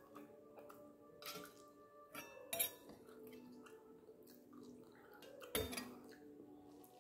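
Sharp clinks of a steel spoon against a stainless-steel plate and serving bowl while curry is ladled out: a few light ones, the loudest about two and a half seconds in, and another a second or so before the end.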